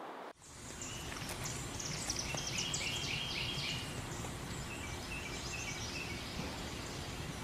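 Outdoor ambience: several songbirds chirping and trilling over a steady low rumble. It begins suddenly about a third of a second in.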